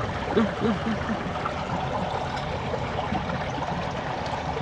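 Steady running water flowing and trickling over stones.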